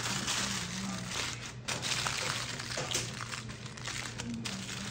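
Aluminium foil crinkling and crackling as hands fold and crush it into a wrapped packet.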